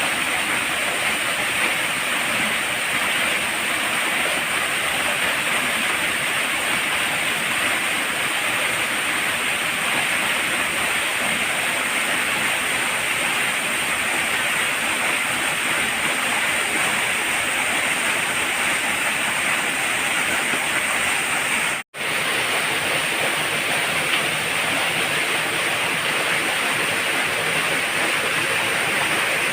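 Waterfall pouring into its plunge pool: a steady rushing of falling water. It cuts out for an instant about three quarters of the way through.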